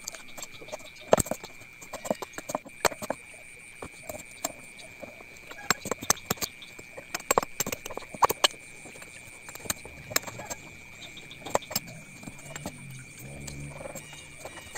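Large chopping knife knocking and prying at a coconut's hard shell on a wooden chopping block, working the shell loose from the meat: irregular sharp hollow knocks, some in quick runs. A thin steady high tone runs underneath.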